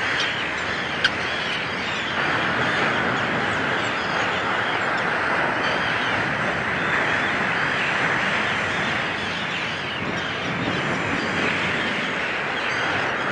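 A colony of common and Arctic terns calling: a steady din of many overlapping calls. One short, sharp click stands out about a second in.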